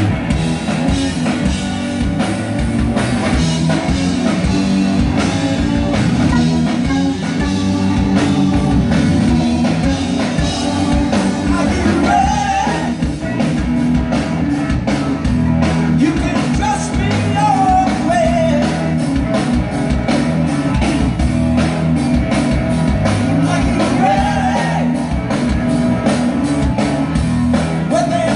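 Live rock band playing loudly, with drums keeping a steady beat under electric guitar and bass, and a singer's voice coming in at times.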